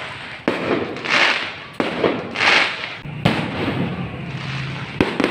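Fireworks going off: four sharp bangs about a second and a half apart, with hissing swells between the first three.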